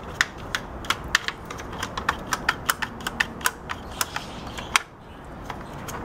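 Rapid, uneven series of sharp plastic clicks and taps, about two dozen, as a microwave's plastic door-latch and switch assembly is handled. They stop about five seconds in.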